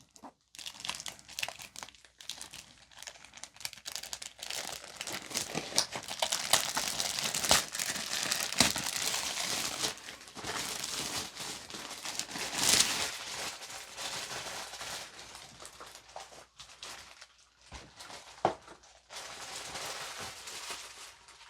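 Plastic wrapping crinkling loudly as it is handled and pulled open, with a dense crackle that rises to its loudest around the middle.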